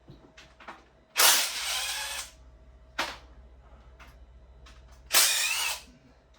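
Cordless power tool running twice in short bursts, a longer one about a second in and a shorter one near the end, spinning bolts out of a Honda K-series engine during teardown, with a sharp click between them.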